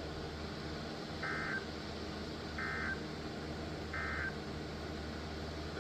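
Emergency Alert System end-of-message signal: three short, identical buzzy digital data bursts about a second and a half apart, marking the close of the tornado warning broadcast, over a low steady hum.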